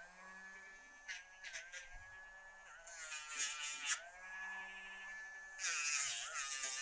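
Rotary nail grinder whining steadily as it sands a dog's toenails. Its pitch sags each time it is pressed to the nail, with a burst of gritty hiss from the grinding about three times.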